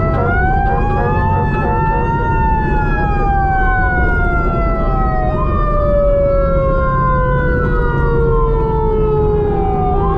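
Fire engine sirens heard from on board: one siren winds up in pitch about the start and then slowly sinks, while a second wails up and down in long slow sweeps, over the truck's low engine and road rumble.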